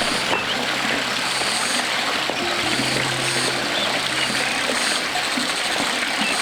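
A forest stream's water running steadily, with soft background music of long held low notes.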